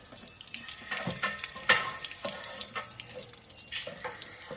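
Water splashing and pouring out of an RV water heater's drain opening as a flushing wand on a hose rinses out the tank, with irregular spatters and one louder splash a little under two seconds in.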